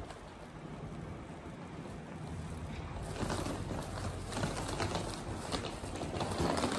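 Footsteps on stone paving over a steady low background hum. About three seconds in, passing in through the glass doors, the clicks and the surrounding noise get louder and busier.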